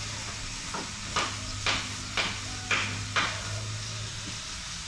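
Hammer blows on wood, about six strikes roughly two a second, the first faint, stopping a little past the middle.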